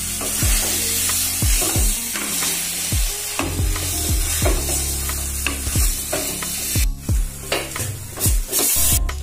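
Spatula stirring and scraping a thick mashed yam paste frying in oil in a non-stick wok, with a steady sizzle. Background music with a deep, regular beat plays underneath.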